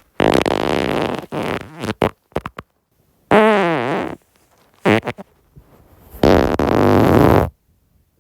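A person farting four times. The first is a long, rough fart that breaks up into sputters. The second has a clear pitch that dips and then rises. The third is a short blip, and the last is another long, rough one that cuts off sharply.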